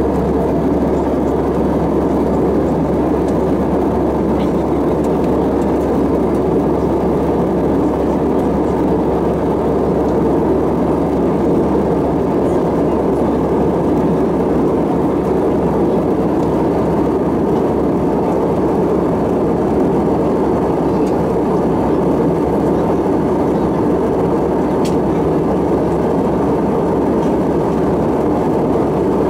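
Steady cabin noise inside an Airbus A320-216 in flight: a constant rush of airflow over the fuselage and the low hum of its CFM56 engines, unchanging throughout.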